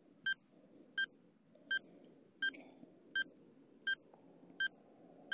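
Countdown timer sound effect: short electronic beeps, evenly spaced about every three-quarters of a second, about seven in all, ticking off the seconds of the countdown.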